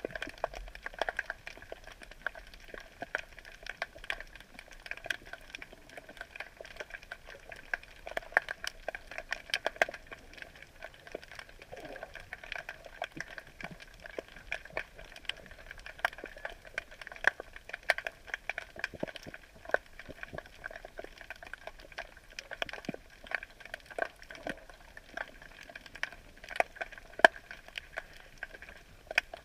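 Underwater ambience picked up by a submerged camera: a dense, irregular crackle of sharp clicks, several a second, with a few louder pops.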